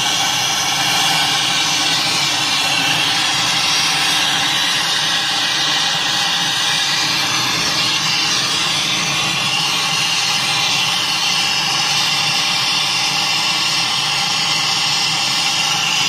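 Brazing torch burning with a steady, loud hiss as its flame heats a copper refrigerant line joint, over a steady hum.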